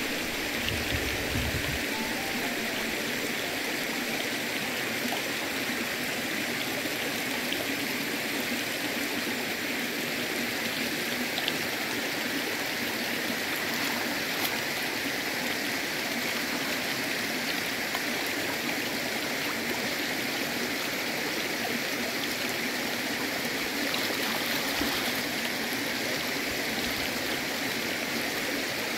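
Shallow river water flowing with a steady, even rush.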